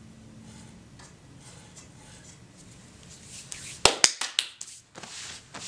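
Faint handling noise, then about four seconds in a quick cluster of sharp knocks as a wooden pool cue shaft is set down on a tabletop, followed by a brief rustle.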